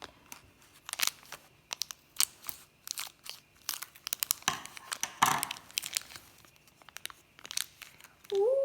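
Small plastic packaging being crinkled and torn open by hand: a run of irregular sharp crackles, with a longer rustling tear about halfway through.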